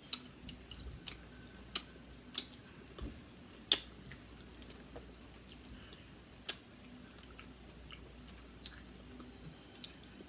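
A person chewing and eating seafood, with scattered sharp mouth clicks and smacks, the loudest just under four seconds in.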